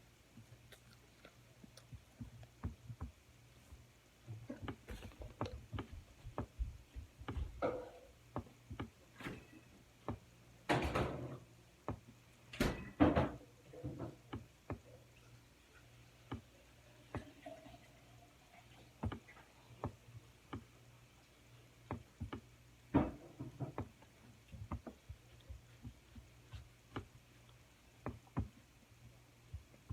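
Eating noises at a meal: scattered small clicks and knocks of utensils and dishes being handled, with a few louder knocks about eleven and thirteen seconds in.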